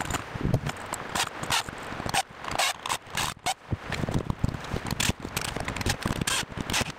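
Irregular knocking, clicking and scraping of a blue plastic dual-gang old-work electrical box and its duplex outlets as they are pushed and worked into a hole cut in a finished wall. This is followed by a cordless drill-driver fastening the box's screws.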